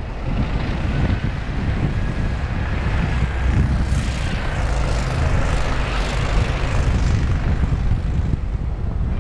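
Engine of a tracked MAX ATV running under power as it slides through sharp turns in snow, with a low steady rumble. A rushing hiss of thrown snow builds about halfway through as the tracks churn sideways.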